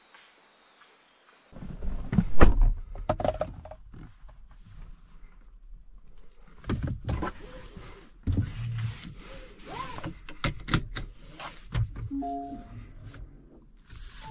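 Faint hiss, then a run of thumps, knocks and clicks inside a car cabin as the driver handles the seat, wheel and controls, the loudest thump about two seconds in. A few short beeps near the end.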